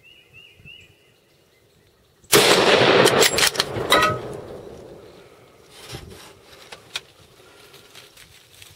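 A single gunshot about two seconds in, very loud, its report and echo lasting about a second and a half before fading; it is the shot that drops a doe. A few fainter knocks follow.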